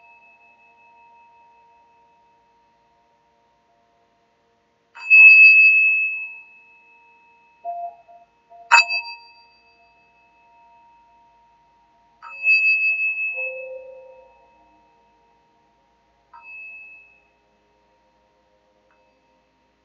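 Small brass singing bowl struck with a striker four times, each strike ringing out in a clear high tone with a higher overtone above it and fading over a second or two; the last strike is the softest. The ring of an earlier strike is still dying away at the start.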